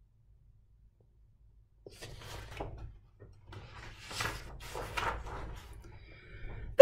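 Pages of a paperback picture book being turned and handled: a string of soft paper rustles and rubs with light knocks, starting about two seconds in after a near-silent pause.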